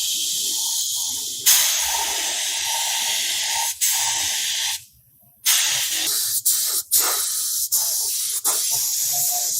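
Spray hissing from a pressurised nozzle in long bursts. It cuts off sharply about five seconds in, then starts again with several brief interruptions.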